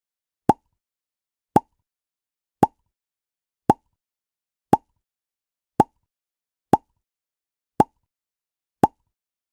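A short 'pop' sound effect (뽁) repeated nine times at an even pace of about one per second, each pop very brief with silence between.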